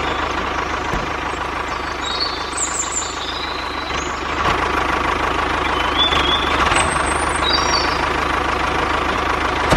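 A tractor engine running steadily, with a faint steady whine and a few brief high chirps.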